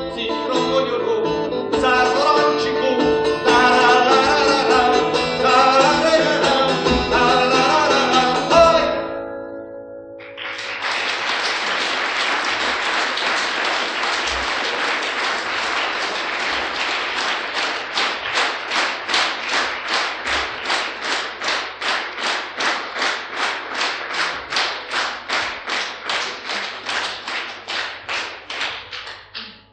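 A live song ends on acoustic guitar and voice, fading out about nine seconds in. An audience then breaks into applause that settles into rhythmic clapping in unison, about two claps a second, and fades out near the end.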